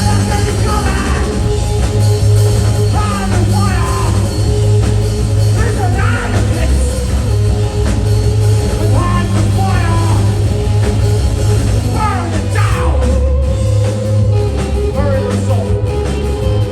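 Live band music in a rock style, with a heavy, sustained bass line and singing over it.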